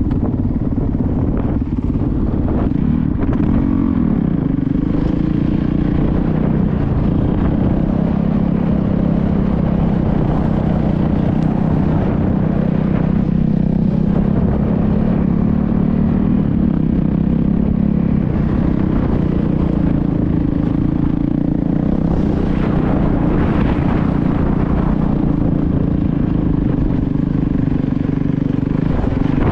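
Motorcycle engine running steadily, its pitch dropping about four seconds in and shifting again around eighteen and twenty-seven seconds as the throttle changes.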